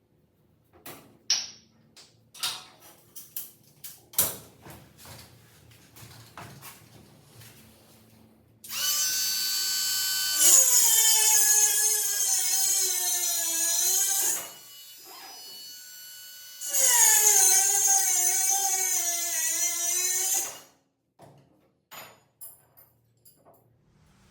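Power drill running in two bursts of about four to five seconds each, its motor pitch sagging under load as it bites. Before that come a series of light clicks and knocks of parts and tools being handled.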